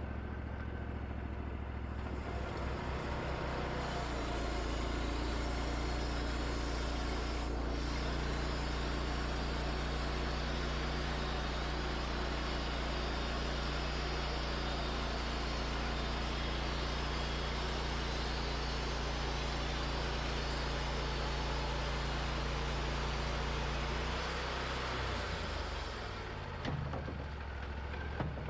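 Wood-Mizer LT40 band sawmill running: about two seconds in the engine comes up to speed and the band blade saws through a red oak log, a steady hiss-like cutting noise over the engine hum. Near the end the cut finishes and the engine drops back toward idle, with a couple of light knocks.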